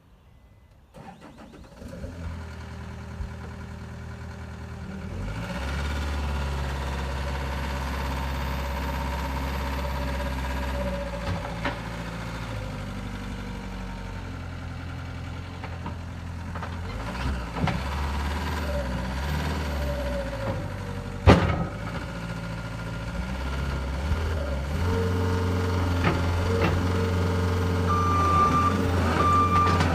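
John Deere 333E skid steer's 100 hp turbo diesel starting about two seconds in, then running and changing speed as it is throttled up and worked. A single sharp clunk comes about two-thirds through, and the reverse alarm starts beeping near the end.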